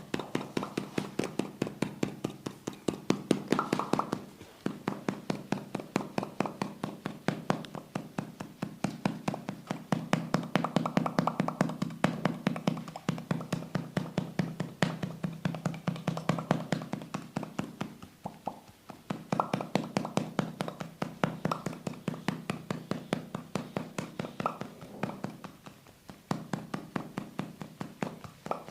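Percussive hand massage strokes: hands rapidly tapping and chopping on the body, about four strikes a second, in runs of several seconds broken by short pauses.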